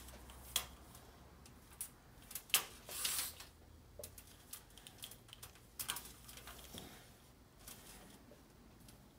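Faint, scattered light clicks and a brief rustle of a motorcycle wiring harness's insulated leads and crimped spade terminals being handled and spread out on a tabletop.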